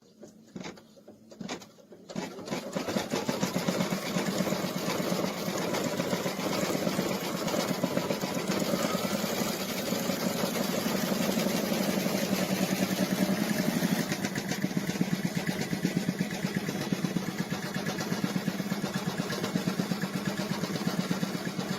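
Embroidery machine stitching at speed: a steady, fast, even clatter of needle strokes. A few separate clicks come first, and the machine gets going about two seconds in.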